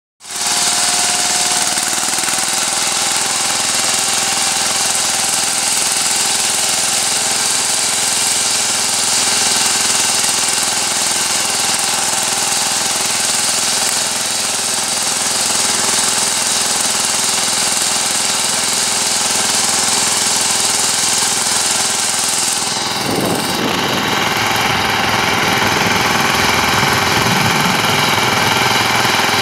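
VST power tiller's single-cylinder diesel engine running steadily under load while its rotary tiller churns through soil.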